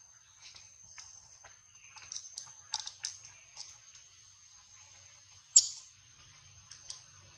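Scattered soft clicks and ticks from macaques picking through fur while grooming a baby at close range, with one louder click about three quarters of the way through. A faint steady high-pitched tone lies underneath.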